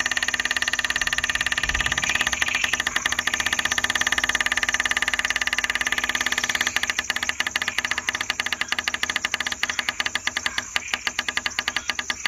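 Chorus of night-calling animals: a steady, rapid pulsing trill that becomes more sharply pulsed in the second half.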